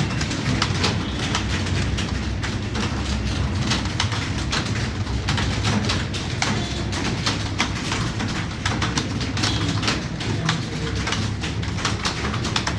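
Several computer keyboards clattering at once in fast, irregular keystrokes as a group of people type, over a low steady hum.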